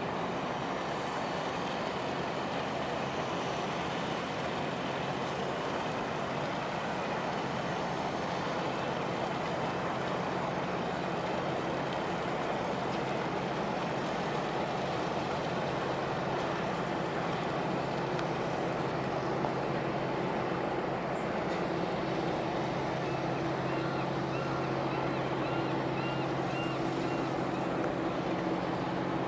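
Fishing trawler's diesel engine running steadily as the vessel moves slowly past, a low drone with an even rushing noise over it. The engine hum grows stronger over the last several seconds.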